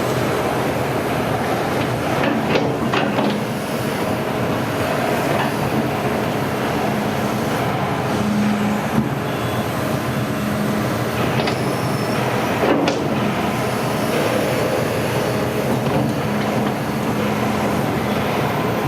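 Hitachi ZX210 tracked excavator running: its diesel engine drones steadily under mechanical clatter, with a few sharp metallic clanks.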